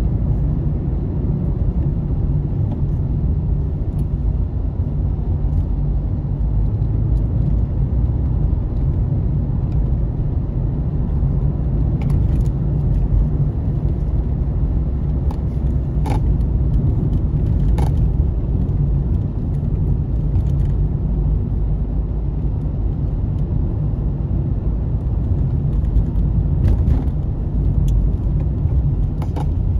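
A car driving along a road: a steady low rumble of engine and tyre noise, with a few short ticks in the second half.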